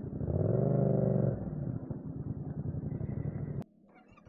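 Motorcycle engine running under way, swelling in a brief rev about half a second in that rises and falls over about a second. The sound cuts off suddenly near the end.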